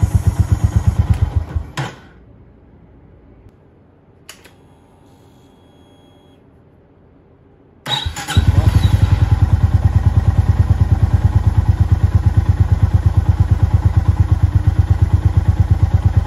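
Honda GB350S's air-cooled single-cylinder engine idling at about 1,000 rpm with an even beat of firing pulses. It cuts out about 2 s in, leaving quiet with one sharp click, then comes back abruptly about 8 s in and idles steadily again.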